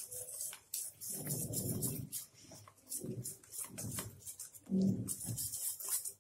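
A whisk beating thick gram-flour (besan) batter in a steel bowl: wet, squelching strokes about once a second, with light clicks of the wires against the bowl.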